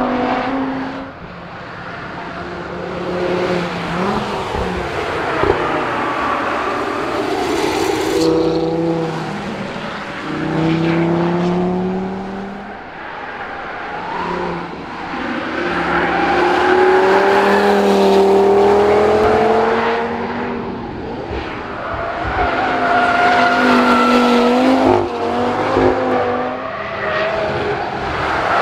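Audi TT RS's turbocharged 2.5-litre five-cylinder engine accelerating hard on track, its note climbing through each gear and dropping at the shifts as the car goes past.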